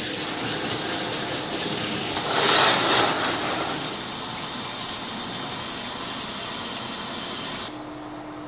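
Shower spray running steadily, hitting the tub and wall, with a louder rush of water about two seconds in. Near the end the water sound cuts off, leaving a quieter steady hum.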